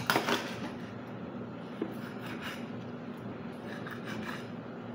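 Kitchen knife cutting and scraping through a fish on a plastic cutting board, in a few short rasping strokes: right at the start, about two and a half seconds in, and again around four seconds.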